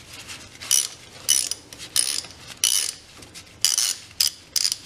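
Socket ratchet clicking in a string of short bursts, about seven, as its handle is swung back and forth, loosening the 10 mm bolts on the front sprocket retaining bracket.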